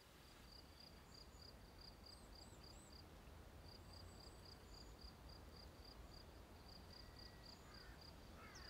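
Faint evening outdoor ambience: a cricket chirping steadily, about three chirps a second, with a few faint bird chirps over a soft background hum.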